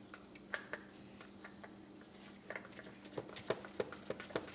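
Faint clicks and light scraping as a new spin-on oil filter is threaded onto the engine by a gloved hand, getting busier about halfway through, over a steady low hum.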